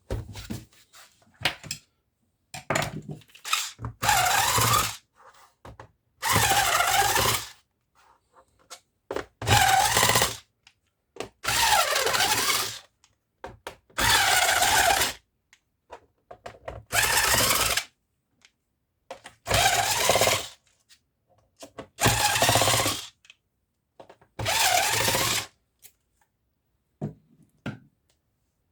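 Electric screwdriver run in about nine short spurts, one every two and a half seconds or so, its motor pitch dipping and rising in each, as it backs out screws from the laptop's bottom case. Small clicks and handling knocks fall between the spurts.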